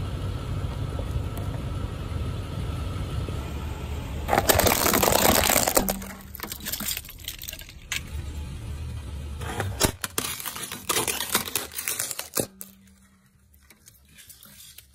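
Low steady rumble of a car close by, a loud rushing noise, then a run of sharp cracks and crunches as a car tyre rolls over and crushes small plastic toy speakers.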